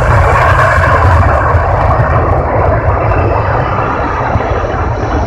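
Loud, steady engine noise of a large aircraft flying a display pass. Its high hiss fades over the first couple of seconds as it draws away.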